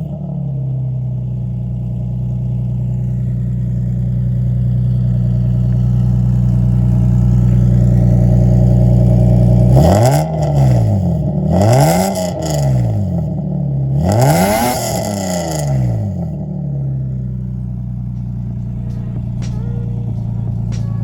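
Lexus IS300 engine through an aftermarket eBay exhaust, idling steadily, then revved sharply three times about ten, twelve and fourteen seconds in, each rev rising and falling, before settling back to idle. The exhaust has a little rasp to it.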